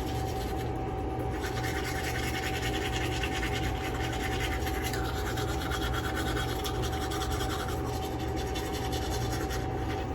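Teeth being brushed with a toothbrush: a steady, rapid scrubbing that starts about a second and a half in and stops just before the end, over a constant faint background hum.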